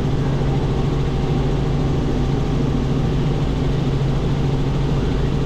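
Robinson R44 helicopter in steady cruise flight, heard from inside the cockpit: an even drone of engine and rotors with a strong low hum that holds steady.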